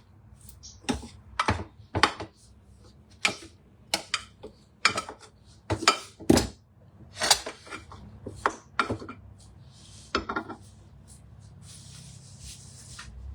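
A spatula knocking and scraping against a pan as fried rice is stirred and mixed, giving about a dozen sharp, irregular clanks. A soft steady hiss comes in near the end.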